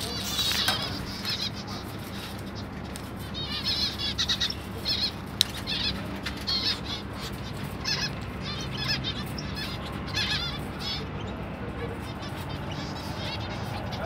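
A flock of small caged finches chirping, with short repeated calls in quick clusters that thin out about eleven seconds in. A single sharp click comes about five seconds in.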